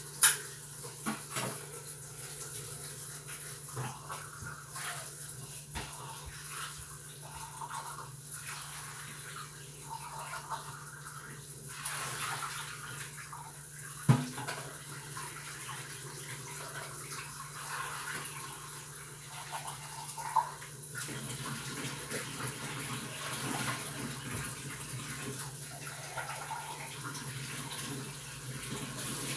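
Chopped vegetables sizzling in a large skillet, a steady hiss, with a sharp clack just after the start and another about halfway through.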